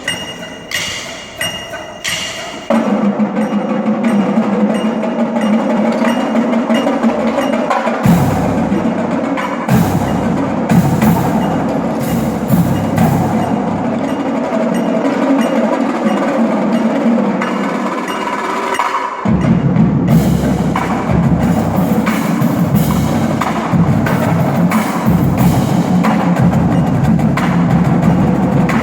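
Drumline playing, with mallet percussion ringing over the drums. A few separate ringing strikes open, then the full ensemble comes in about three seconds in. A deep bass part joins about eight seconds in, stops briefly around nineteen seconds, and comes back.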